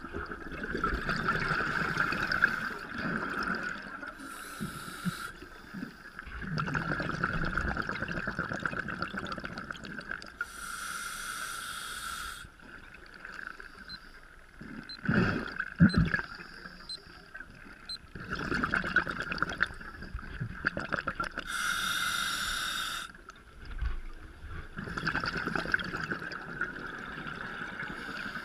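Scuba regulator breathing heard underwater: a slow, steady cycle of hissing inhalations through the regulator, each followed by a burst of exhaled bubbles, about four breaths in all. A few dull knocks about halfway through.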